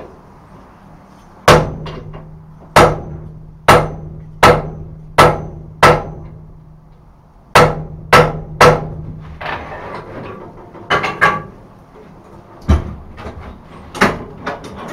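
Heavy hammer blows on hot iron at the anvil, six in a steady rhythm and then three more. Each blow leaves the anvil ringing with a low hum. After that come lighter knocks and clatter of metal on the anvil.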